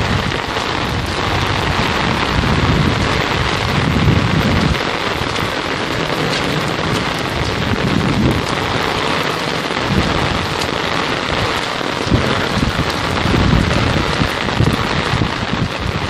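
Torrential rain pouring down in a steady hiss, with uneven low rumbles coming and going underneath.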